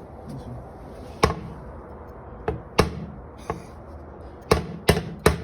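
Hammer striking a metal part of the spreader mount, about seven sharp, irregular blows, each with a brief metallic ring, knocking a tight-fitting piece into place.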